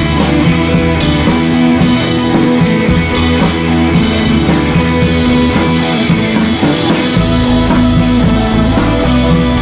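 Background rock music with guitar and drums; a deep bass enters about seven seconds in.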